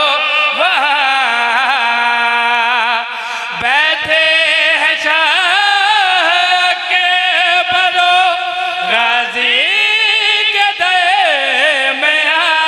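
A zakir's male voice chanting a Punjabi elegy verse in a slow, melismatic melody, holding long wavering notes with short breaks between phrases.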